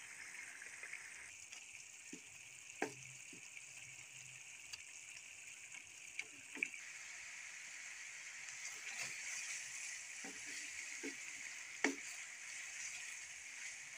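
Onion-tomato masala frying in oil in a pan: a quiet, steady sizzle, with a few short taps of a spatula against the pan as it is stirred, the loudest near the end.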